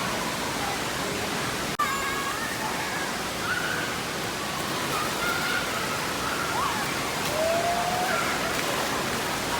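Steady rushing din of an indoor waterpark: water running and splashing, with faint distant children's voices over it.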